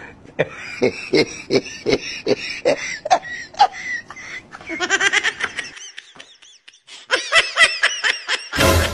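Laughter: a run of short rhythmic bursts, then two spells of higher-pitched giggling with a short pause between them, and a brief loud burst near the end.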